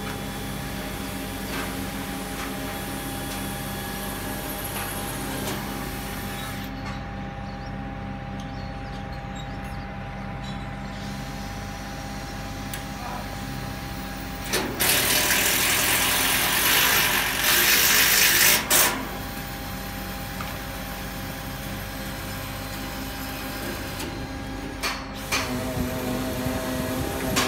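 Truck-mounted knuckle-boom loader crane running, its engine and hydraulic pump giving a steady hum. A loud hiss lasts about four seconds in the middle, and there are a few knocks near the end.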